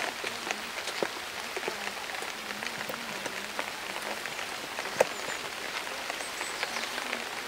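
Light rain pattering on a rock surface: a steady hiss with scattered small drip ticks, and one sharper tap about five seconds in.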